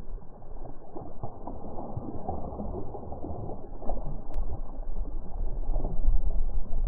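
A hooked fish thrashing and splashing at the water's surface, irregular splashes over a steady low rumble.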